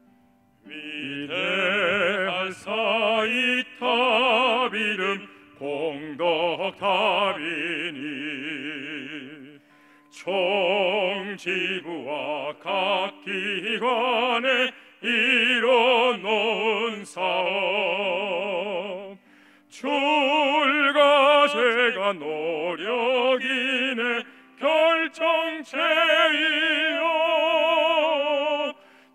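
Operatic solo singing with a wide, even vibrato over sustained accompanying notes, in long phrases with short breaks about a third and two-thirds of the way through.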